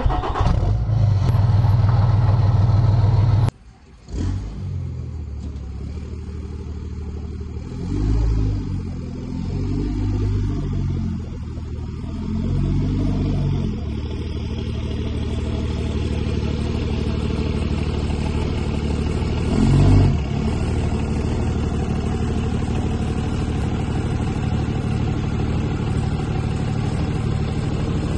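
Second-generation Dodge Ram's 24-valve 5.9 Cummins diesel running at low speed as the truck is driven up to a dump trailer, with a few short swells of throttle. A loud low drone at the start cuts off after about three and a half seconds.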